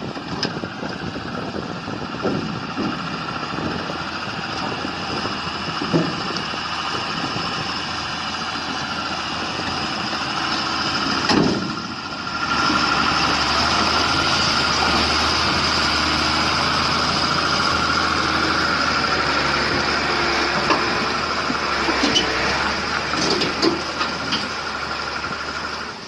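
Heavy vehicle engine running steadily with a constant whine, likely a truck's. Around the middle the sound dips briefly and then comes back louder, with a few scattered knocks.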